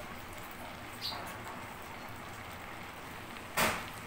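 Curry simmering in an aluminium pot on a gas stove: a faint, steady hiss with a few small pops. About three and a half seconds in comes one short, loud scrape.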